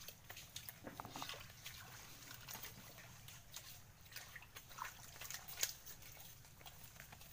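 Faint, irregular wet squelches and small clicks of waterlogged mangrove mud being dug and scooped by hand, with one sharper click a little past five seconds in.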